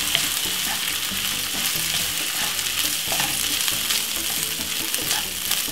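Leftover basmati rice and chopped vegetables sizzling in a hot non-stick frying pan, stirred and scraped through with a wooden spatula, with a few light clicks of the spatula against the pan.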